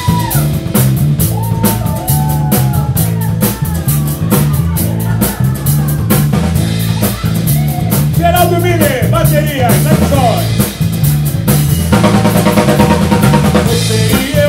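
Live band playing: a drum kit keeping a steady beat under electric bass and acoustic guitar, with a man singing over it. The playing gets fuller in the last couple of seconds.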